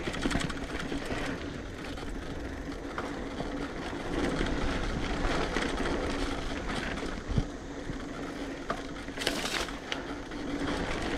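A mountain bike rolling fast over a dirt trail: steady tyre and rolling noise with scattered clicks and knocks from the bike, and a louder rush of noise about nine seconds in.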